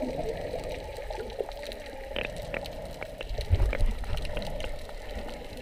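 Underwater sea ambience with a muffled, steady water rush, scattered small clicks and crackles, and a few low thumps near the middle.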